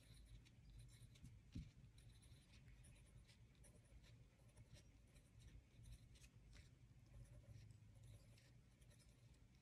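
Faint scratching of a fine-tip permanent marker drawing on paper, in short, irregular strokes.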